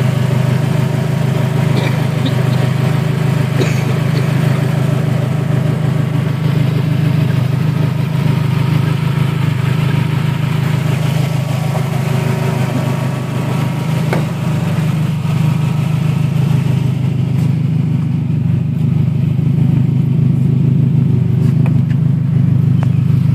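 Toyota 2.2-litre four-cylinder engine, fitted with an open cone air filter and a heat-wrapped exhaust header, idling steadily and loudly.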